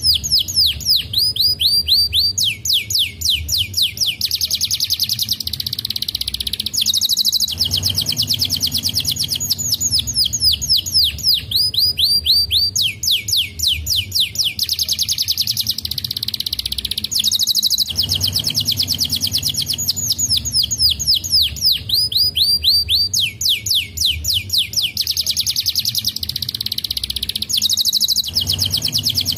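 A domestic canary sings loudly and continuously: long rolling trills of rapidly repeated, downward-sweeping notes, linked into phrases. The same run of trills comes round again about every five seconds.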